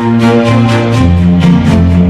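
Background music with a steady beat and sustained chords, changing chord about a second in.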